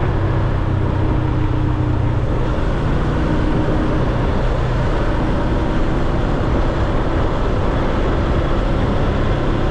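Motorcycle riding along at speed: steady wind rush on the microphone over road noise, with the engine's faint hum underneath.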